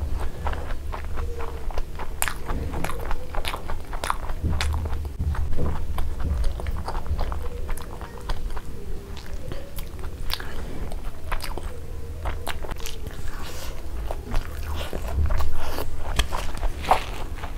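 Close-miked eating of sunny-side-up fried eggs with browned edges: repeated biting and chewing, with many short wet mouth clicks and some crunching.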